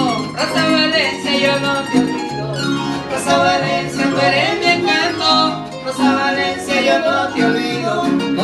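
A large wooden folk harp plucking quick runs of notes, accompanied by a small guitar, playing a Latin American folk tune.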